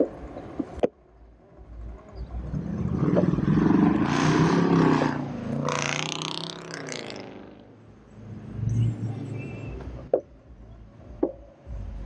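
A car driving past close by, its engine and tyre noise swelling to a peak about four to six seconds in and dropping in pitch as it pulls away. A few sharp clicks stand out near the start and twice near the end.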